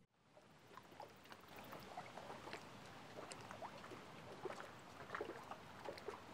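Gentle lake water lapping and splashing softly at the shore, many small irregular splashes over a steady hiss, fading in over the first second.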